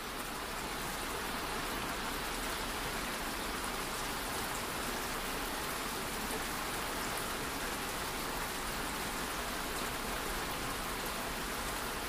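Steady rainfall, an even hiss of rain with no rhythm or tones, swelling slightly over the first second or two and then holding level.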